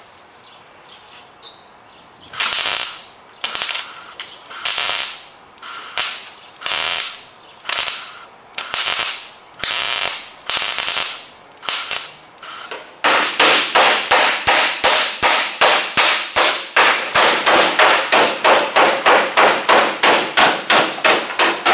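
MIG welder laying short bursts of weld, about one a second, to fill holes in a steel car quarter panel. About thirteen seconds in, this gives way to a fast, even run of hammer blows on the hot weld against a dolly, three or four a second: hammer welding.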